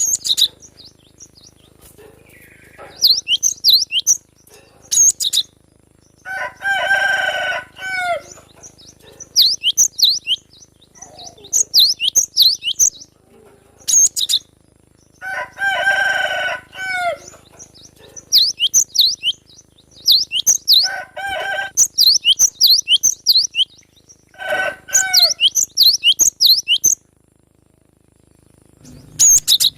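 Wild young cinereous tits (gelatik batu) singing in repeated bursts of rapid, high chirping notes. Lower, harsher calls of a second or two come in about four times among the chirps.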